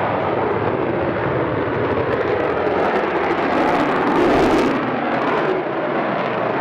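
F-16 fighter jet's engine roaring steadily as the jet climbs overhead. The roar swells to its loudest about four seconds in, with a rushing hiss on top, then eases slightly.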